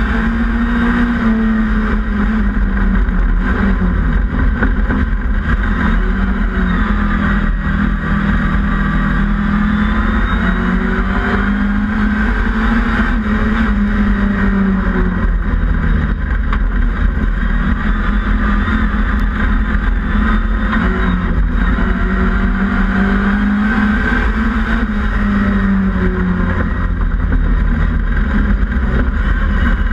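Mini autograss racer's engine heard from inside the cabin at racing speed, its note rising and falling every few seconds as the driver accelerates and lifts round the dirt oval. Under it runs a constant low rumble of the car over the rough track.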